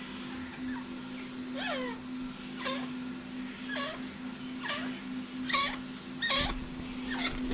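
Gray francolin calling: a run of about seven sharp notes, roughly one a second, each sliding steeply down in pitch, over a steady low hum.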